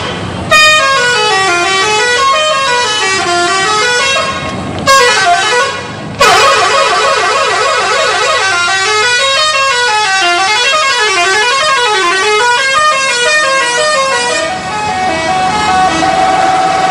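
Indonesian bus 'telolet' musical horn playing a melody of quick stepped notes that rise and fall. It breaks off and starts again twice, then settles into a steadier held tone near the end.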